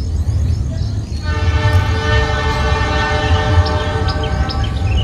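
Diesel locomotive horn sounding one long, steady chord from about a second in until near the end, over the low rumble of the train.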